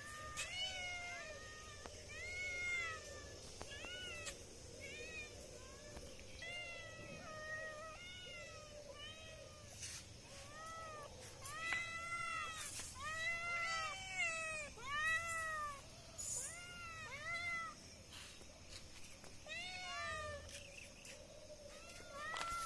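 Cats meowing over and over: short mews that rise and fall in pitch, one or two a second and sometimes overlapping, with a few brief clicks in between.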